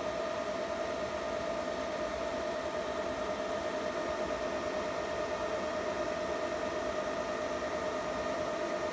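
Antminer L3++ miner's cooling fans running at full speed: a steady airy rush with a constant whine of several tones on top.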